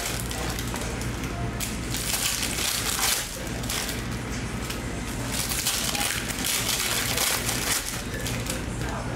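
Foil trading-card pack wrappers crinkling and crackling as hands handle a stack of baseball card packs, in rapid irregular bursts.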